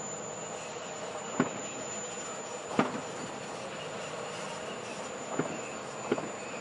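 Distant diesel freight train approaching: a steady low rumble of its locomotives, with four short sharp knocks.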